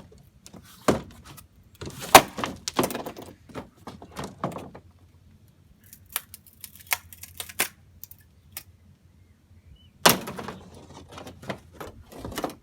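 Irregular knocks and clatter of vintage circuit boards being struck and moved about, with a sharp hit about two seconds in and another about ten seconds in, and lighter clicks in between.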